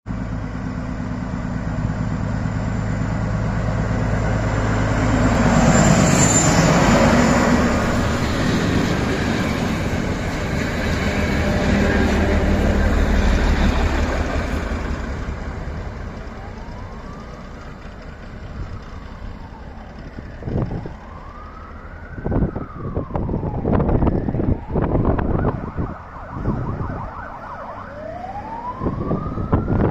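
Vintage diesel train passing: the engine's deep drone swells as it goes by, then fades. From about halfway, high wheel squeals that rise and fall, four or five times, with sharp knocks, as the wheels take a tight curve.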